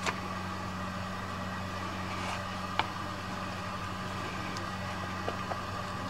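Steady low electrical hum, like a running motor or mains hum, with two faint clicks, one at the start and one a little under three seconds in.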